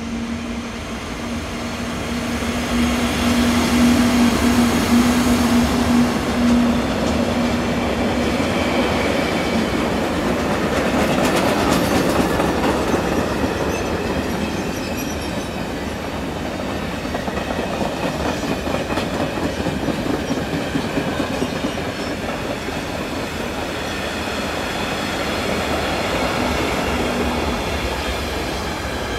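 Freight train passing behind two electric locomotives: a steady electric hum from the locomotives for the first several seconds, then the long string of freight wagons rolling by with a continuous rumble, wheels clattering over the rails and some wheel squeal.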